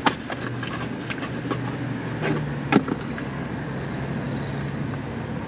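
Handling noise as a new liquid-line filter drier is unpacked from its cardboard box. There are two sharp clicks, one at the start and one about halfway through, with lighter ticks between them, over a steady low hum.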